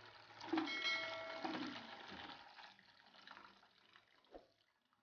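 Hot, starchy cooking water drained from an aluminium pot of boiled yam and poured into a plastic basin. It splashes loudly at first, then thins to a trickle as the stream narrows. There is a short knock near the end.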